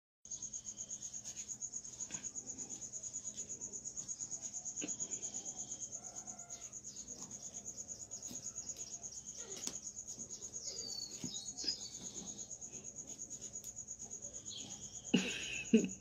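Insect chirping: a high, steady trill that pulses several times a second throughout. Near the end a person's voice breaks in, louder than the trill.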